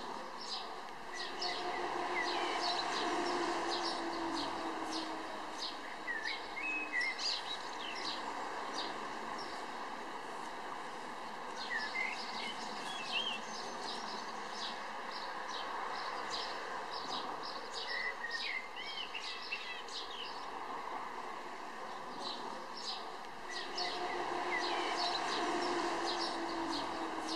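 Outdoor ambience of many small birds chirping and twittering, with a few curling whistles, over a steady background rush. A faint low drone swells briefly a couple of seconds in and again near the end.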